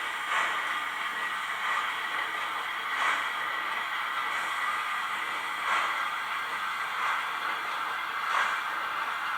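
Model steam locomotive's sound decoder playing a steady steam hiss with a slow, even chuff about every second and a half, as at a slow running speed.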